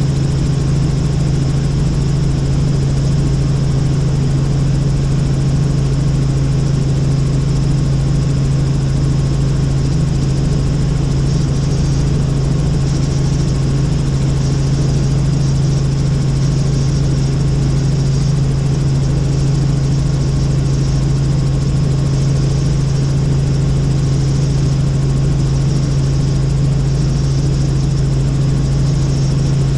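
Helicopter in flight: a steady, loud drone of rotor and engine with a strong low hum.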